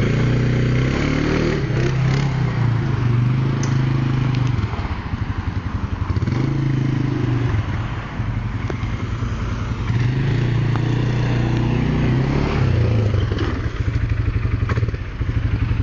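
Kymco MXU 300 ATV's single-cylinder four-stroke engine running while it is ridden, revving up and easing off several times.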